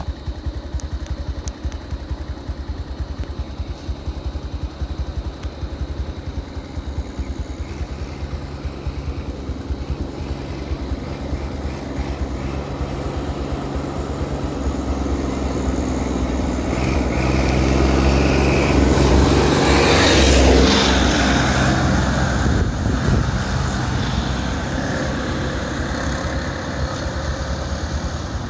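A small vehicle engine idling close by with a steady low pulsing. About sixteen seconds in, another vehicle approaches, is loudest as it passes some twenty seconds in, then fades.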